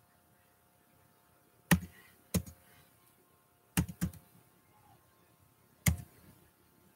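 Five sharp taps or knocks close to the microphone, irregularly spaced, two of them in quick succession about four seconds in.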